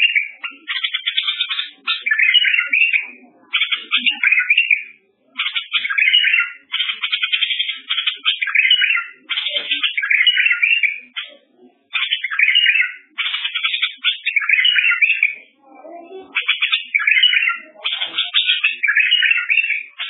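A songbird singing a long run of phrases made of rapid trills and warbles, with short pauses between phrases.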